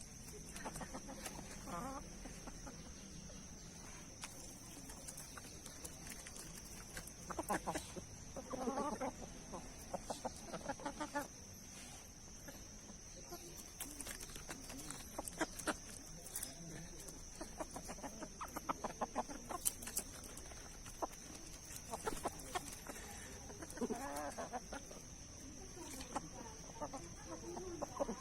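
Domestic chickens clucking quietly, with a few short calls and scattered light ticks, over a faint steady high hiss.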